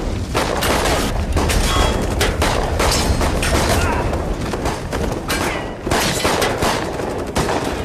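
Action-film fight sound effects: rapid gunshots and heavy crashing metal impacts, one sharp hit after another.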